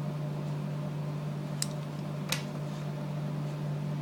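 A steady low electrical hum with two small sharp clicks, about a second and a half and two and a quarter seconds in. The clicks are most likely the iPhone 3GS's small plastic case parts being handled during reassembly.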